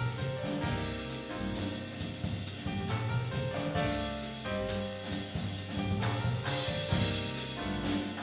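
A jazz sextet playing live: saxophone, trumpet and trombone over piano, double bass and drum kit.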